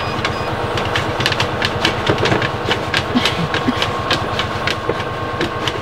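Hydro-jetting machine running during sewer root cutting: a steady engine hum with a rapid string of sharp clicks, about four a second.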